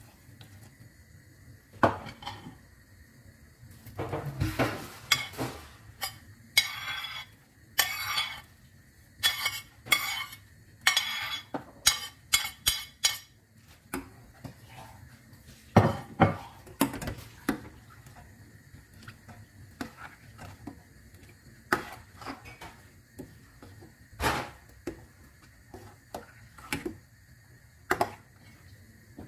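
Metal ladle knocking and clinking against the sides of a stainless steel pot while soup is stirred, in irregular sharp clinks that come thick and fast for several seconds, then more sparsely.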